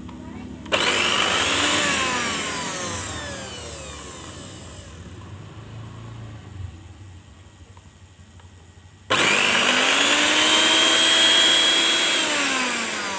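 Repaired blender's motor switched on in a test run. It starts suddenly about a second in with a loud whine, then slows over several seconds with falling pitch. It is switched on again near the end, runs at speed for a few seconds, and begins to slow once more. The blender that would not turn on now runs.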